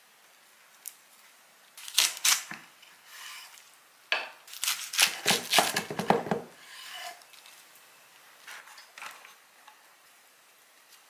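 Chef's knife cutting through a stack of napa cabbage, perilla leaves and raw beef on a wooden cutting board: two sharp cuts about two seconds in, then a quick run of cuts from about four to six and a half seconds, followed by a few soft handling sounds.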